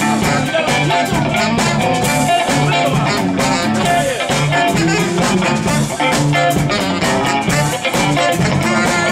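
Live soul band playing an instrumental groove with a steady beat: a tenor saxophone, electric guitar, bass and drums.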